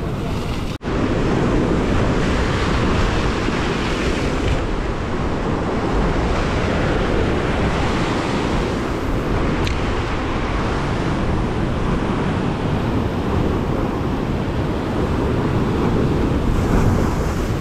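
Ocean surf surging and breaking against a rock ledge, with wind buffeting the microphone. The sound drops out for an instant about a second in.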